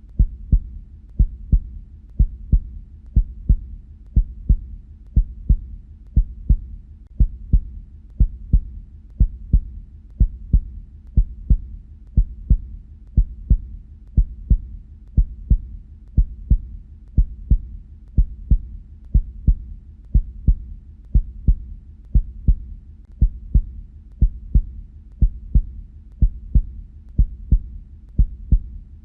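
Human heartbeat: the paired lub-dub sounds of the heart valves closing, repeating steadily at about one beat a second.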